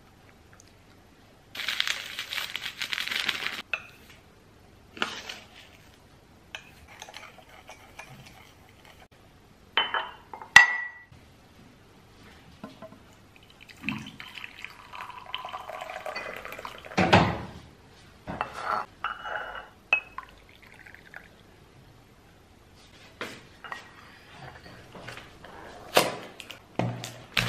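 Dishes and cutlery clinking and knocking now and then, with a few seconds of running liquid near the start.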